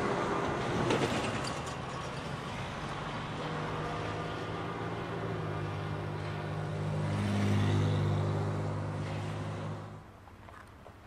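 CSX diesel locomotive on the move: the tail of a horn blast in the first second, then the steady drone of its diesel engine, swelling about seven to eight seconds in and cutting off abruptly near the end.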